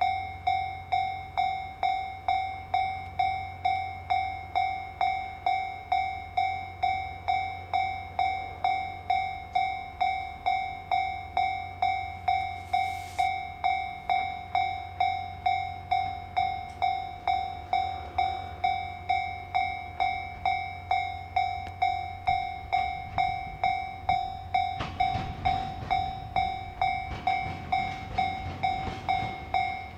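Japanese level crossing warning bell ringing in a steady, even ding-ding, about three strikes every two seconds. Late on, a train's low rumble grows and its wheels start clicking over the rail joints as it draws near.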